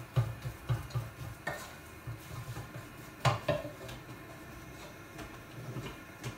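A spatula stirring and knocking through thick bubble and squeak mash in a speckled saucepan: soft knocks and scrapes, quick at first, with one sharper clang against the pot about three seconds in.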